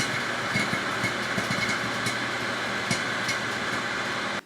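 Microwave oven running with a steady hum while popcorn kernels pop inside a microwave popcorn popper, with many short irregular pops. The sound cuts off near the end.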